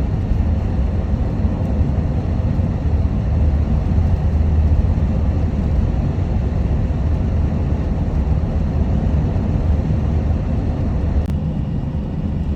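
Steady low road and engine noise of a moving minivan, heard from inside the cabin.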